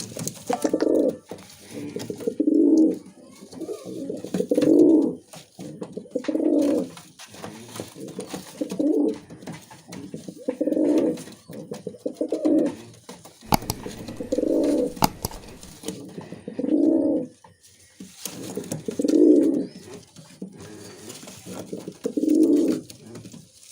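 Musaldom pigeon cooing in repeated low phrases about every two seconds, with a few sharp clicks near the middle.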